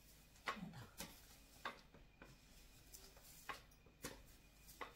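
Long-handled bristle broom sweeping a tiled floor: about six faint, short brush strokes at an uneven pace.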